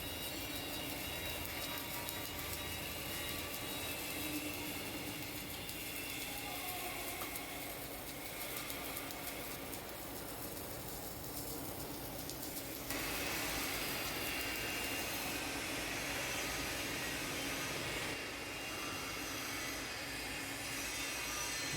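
Steady mechanical running noise with hiss from automatic submerged arc welding equipment. It jumps abruptly louder and brighter about two-thirds of the way through and shifts again near the end.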